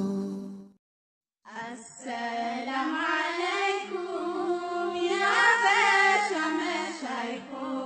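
A high voice singing an Islamic devotional song (nasheed) in a flowing, chant-like melody. It starts about a second and a half in after a brief silence, and a steady low tone joins beneath it a few seconds later.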